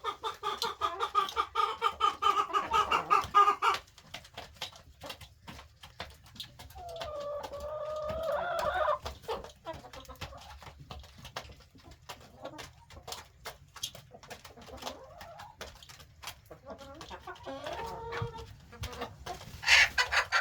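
Chickens clucking: a quick run of repeated clucks for the first few seconds, a longer drawn-out call about halfway through, and a few short calls near the end.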